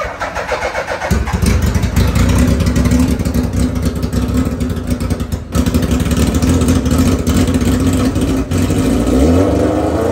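A vehicle engine running loud and rough, stepping up about a second in, then revving up near the end and dropping back.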